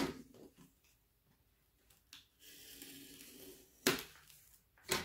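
Utility knife blade prying a glued-on wooden flag cutout off a wooden truck sign: a scraping, tearing stretch in the middle, with sharp snaps and knocks at the start and again near the end.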